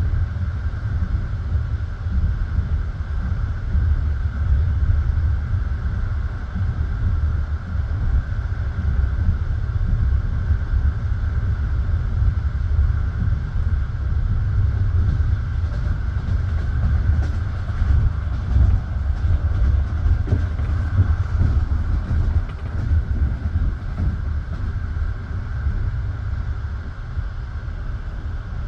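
Passenger train carriage running along the rails, heard from inside the car: a steady low rumble of wheels on track, with faint clicks of the wheels over rail joints around the middle.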